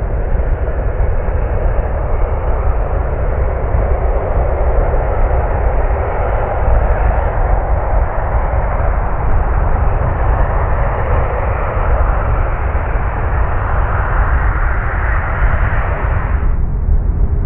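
Airbus A380-841 jet engines (Rolls-Royce Trent 970 turbofans) running as the airliner taxis: a deep steady rumble under a broad jet roar that slowly swells. It drops off suddenly near the end.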